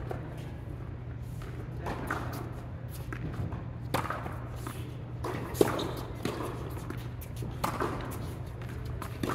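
Tennis ball hit back and forth with rackets and bouncing on an indoor hard court in a large hall: a handful of sharp pops a second or two apart, the loudest about five and a half seconds in, over a steady low hum.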